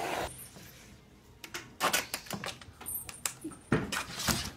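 A cat hissing briefly, then sharp clicks and knocks in two clusters, about one and a half and four seconds in.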